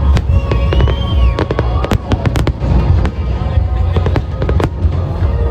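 Aerial fireworks display with shells bursting and crackling in quick succession over a continuous low rumble, with the show's music playing alongside.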